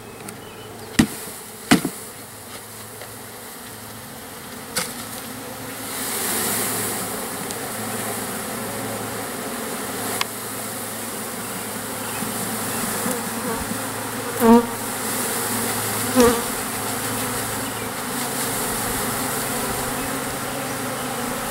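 Package of about 10,000 honeybees buzzing as they are shaken out of their cage into a hive box. A few sharp knocks come near the start. The buzz swells about six seconds in as the bees fly up, flighty but not angry.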